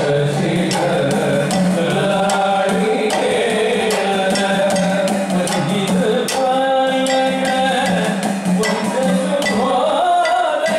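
Sopana sangeetham: male voices singing a slow Kerala temple melody, accompanied by evenly struck idakka hourglass drum and small hand cymbals keeping time.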